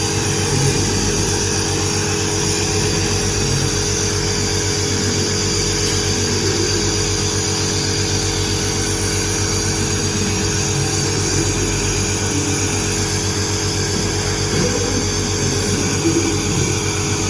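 Electric compressor nebulizer running steadily, a continuous motor hum with a hiss, while it nebulizes medication to loosen the patient's phlegm.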